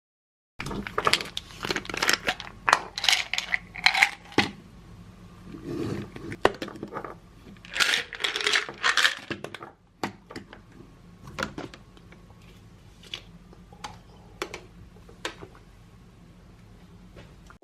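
Handling sounds of food preparation: sharp clinks and clatters of small hard objects mixed with packaging crinkling, busiest in the first ten seconds and then thinning out to occasional clicks.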